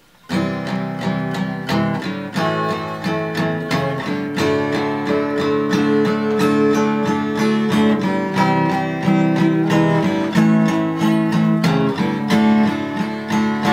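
Acoustic guitar music, plucked and strummed in a steady rhythm, starting after a brief gap at the very beginning.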